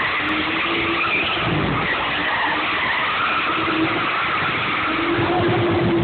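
A drift car's tyres squealing and skidding as it slides around the course, its engine running under the noise.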